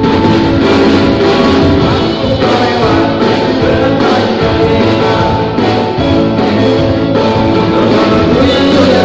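Amplified live rock band playing: electric guitar, bass, drum kit and keyboard together, loud and steady.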